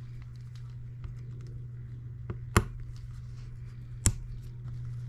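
Two sharp metallic clicks about a second and a half apart, with a few faint ticks, as a small hand tool loosens a fastener on an Enjomor hit-and-miss model engine. A steady low hum runs underneath.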